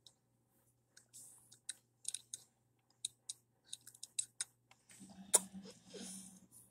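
Faint, irregular light clicks and taps, a dozen or so, with one sharper click a little after five seconds.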